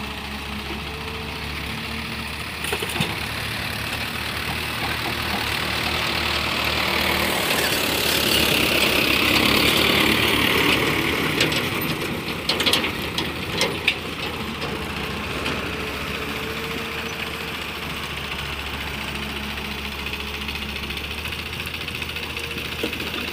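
Diesel engines of a hydraulic excavator and a farm tractor running steadily as the excavator loads sand into the tractor's trolley. About a third of the way in, a louder rushing sound swells for a few seconds. A few sharp knocks follow just past the middle.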